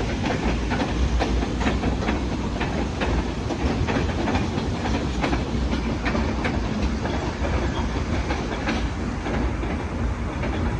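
Short freight train rolling past, its steel wheels clicking over the rail joints over a steady low rumble.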